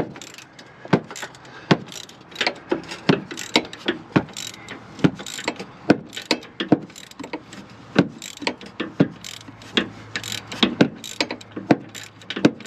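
Hand socket ratchet with an extension clicking in quick runs of ticks as it is swung back and forth on a bolt in a van's front suspension, a bolt being turned by hand rather than with an impact tool.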